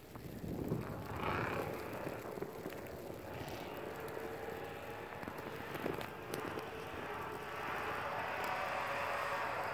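Distant Ford F-150 5.0-litre V8 revving as the pickup spins doughnuts in snow, the revs rising in swells, then holding steadier and louder near the end.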